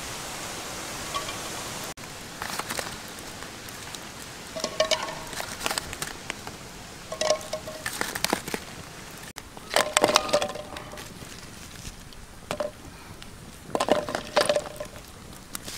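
Dishes and utensils clinking: several short clusters of quick hard knocks, each with a brief ringing tone. A steady hiss runs at the start and stops abruptly about two seconds in.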